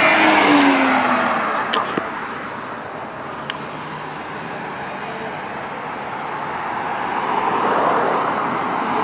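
A car drives past, its engine note dropping in pitch as it pulls away over the first couple of seconds. Steady road noise follows, and another vehicle's sound builds towards the end.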